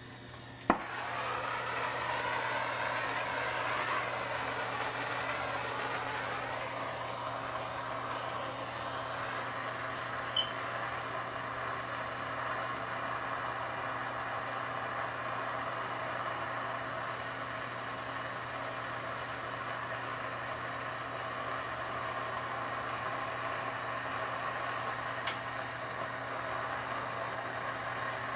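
Handheld plumbing gas torch heating a sweated copper pipe fitting for soldering. A sharp click about a second in, then the flame burns with a steady hiss, with a couple of faint ticks later on.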